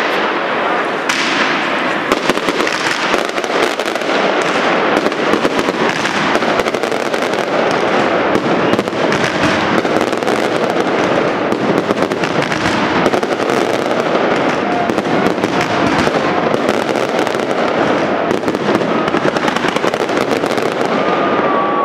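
Aerial fireworks going off in a dense, unbroken barrage: rapid crackling and bangs from crackling stars and shell bursts, with no pauses.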